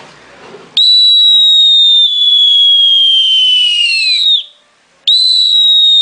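Totocuic bird-call whistle blown in two long, high whistles imitating a sparrowhawk (gavilán) that has spotted its prey. Each starts sharply and slowly falls in pitch, sliding down at the end; the second begins about a second after the first stops.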